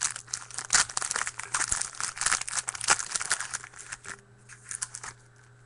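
Trading-card pack's foil wrapper being torn open and crinkled in the hands, with dense crackling for about four seconds that thins to a few rustles before stopping.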